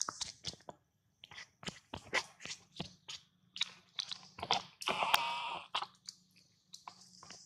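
Close-up wet smacking and clicking mouth sounds from macaques, irregular and several a second, with a brief pitched call from a monkey about five seconds in.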